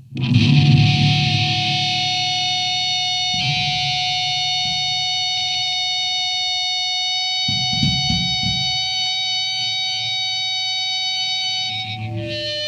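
Distorted electric guitar through effects, playing a noise passage: several high ringing tones held steadily for seconds over a rough, rumbling low end. It starts abruptly after a short silence, and the tones shift about a third of the way in and again near the end.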